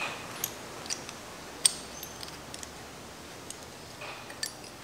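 Sparse, light metallic clicks and clinks from a steel tube-flaring tool being handled and opened to free freshly flared copper tubing; the sharpest click comes about a second and a half in.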